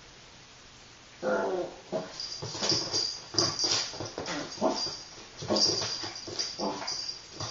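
Toy poodle play-growling in short bouts while wrestling a cat, starting about a second in, with scuffling on a wooden floor.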